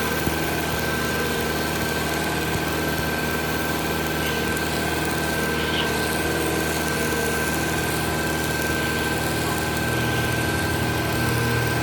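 Engine running steadily at a constant speed, with a steady high whine above its hum.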